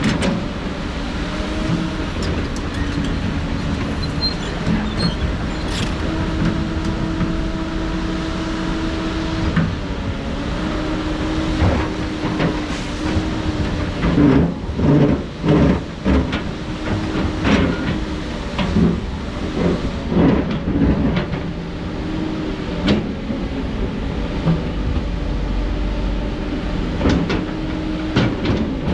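Heavy diesel construction machinery running steadily, its engine note stepping up and down under load. A run of sharp knocks and clanks of rock and metal comes through the middle.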